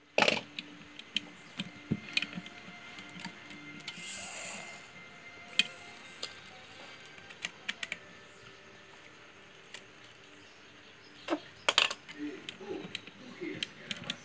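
Scattered sharp clicks and light knocks of metal parts and tools on the exposed main shaft and gears of a Singer sewing machine being worked on by hand, with a quick cluster of knocks near the end.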